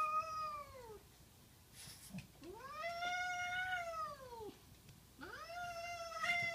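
Domestic cat giving three long, drawn-out meows: the first falls away, the second rises and then falls, the third rises and holds. A cat's plea to be let into a room.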